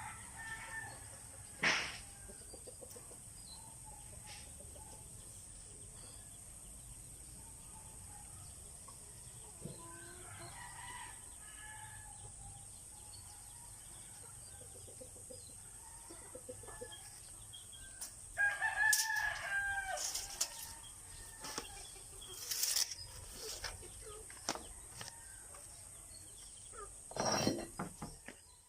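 A rooster crows once, about two-thirds of the way in, with lower clucking from chickens earlier and a few sharp knocks.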